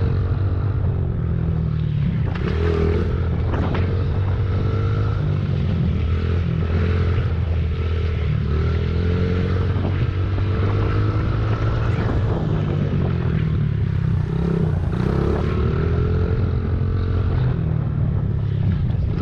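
Dirt bike engine heard close up from an onboard camera while riding a trail, its pitch rising and falling over and over with the throttle and gear changes.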